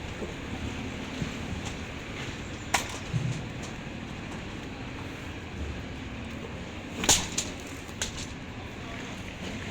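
Building-site noise during a concrete slab pour: a steady background with a faint low hum, broken by a few sharp knocks. The loudest knock comes about seven seconds in.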